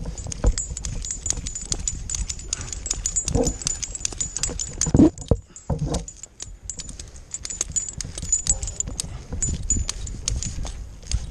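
Metal climbing hardware such as carabiners clicking and jingling in quick, irregular strokes while rope gear is handled, over a low rumble. A few short pitched sounds break in, the loudest about five seconds in.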